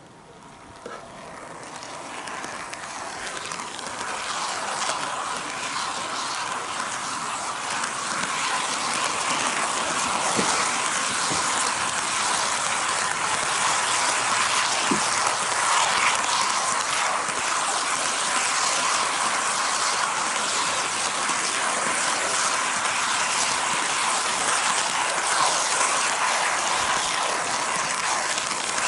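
HO gauge model train rolling on sectional track, heard from a camera car riding on it: a steady rattling wheel noise with a faint motor whine, growing louder over the first several seconds as the train picks up speed and then running on evenly.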